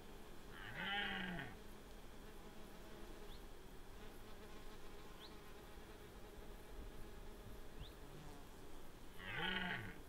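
Red deer stags roaring in the rut: two short roars, about a second in and again near the end, each a hoarse call that rises and then falls in pitch.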